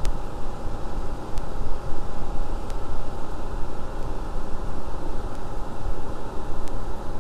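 Suburban NT-30SP RV furnace blower running steadily after a test fire: an even rushing noise with a low hum and a faint steady tone, and a few light clicks.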